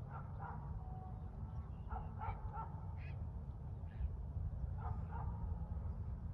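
Short animal calls, repeated in small clusters of two or three, over a steady low rumble.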